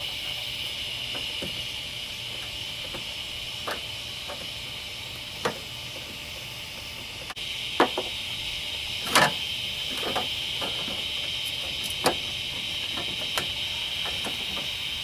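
Scattered clicks and knocks of a plastic pop-up headlight shroud and its screws being handled and lifted off, over a steady high-pitched hiss. The loudest knocks come about 8 and 9 seconds in.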